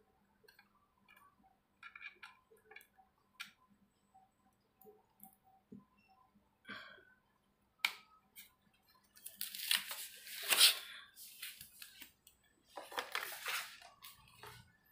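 Hands handling computer hardware and cables: scattered small clicks and ticks, then louder crackly rustling from about nine seconds in and again near the end.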